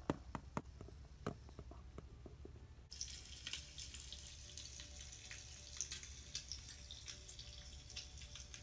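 A few light plastic clicks and taps, then, about three seconds in, a sizzle of frying bacon starts abruptly and runs on as a steady crackle with many small pops.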